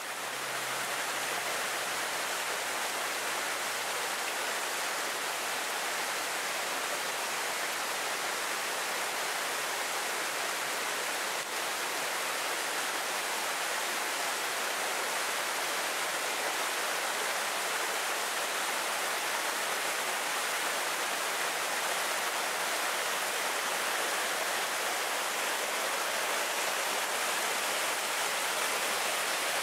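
Waterfall with water falling steadily: an even, unbroken rushing hiss, strongest in the upper range.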